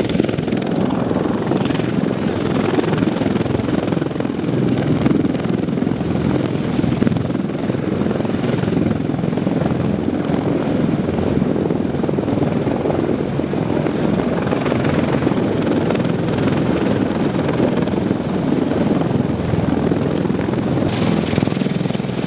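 CH-53E Super Stallion heavy-lift helicopter running on the ground with its rotors turning, a steady, unbroken din of its three turboshaft engines and rotor.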